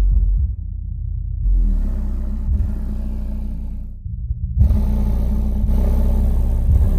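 Savard Hi-Q 6.5-inch subwoofer playing loud, deep bass music, driven by a DTI MA2500D amplifier giving it about 150 to 200 watts. The bass changes in sections, dropping briefly about four seconds in before coming back stronger.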